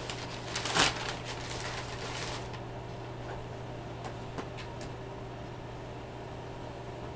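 Food packaging being handled: rustling and crinkling for the first couple of seconds, loudest in one burst about a second in, then a few light clicks, over a steady low hum.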